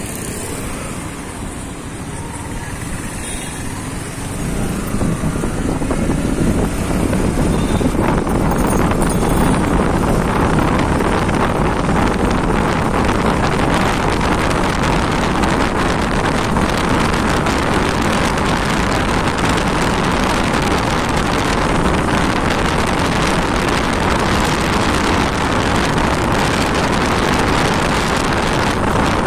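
Wind rushing over the microphone with the engine and road noise of a moving motorcycle or scooter. The noise swells about five seconds in as the bike picks up speed out of a slow turn, then holds steady at cruising speed.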